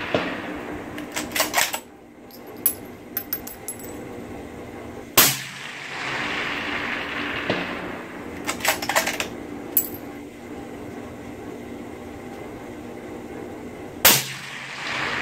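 Suppressed rifle fired twice, about nine seconds apart, each shot followed by a long echo. Between the shots the bolt is worked: a quick run of metallic clicks as the spent case comes out and a fresh round is chambered.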